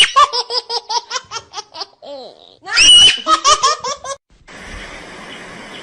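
A baby laughing: a high squeal, then a quick run of laughter, about six pulses a second, repeated twice. Near the end the laughter stops and a faint steady hiss remains.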